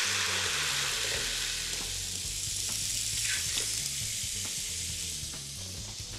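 Vegetable broth poured into a hot pot of freekeh with sautéed onion, garlic, carrot and celery, hissing and sizzling as it hits. The sizzle is loudest at the start and dies down gradually.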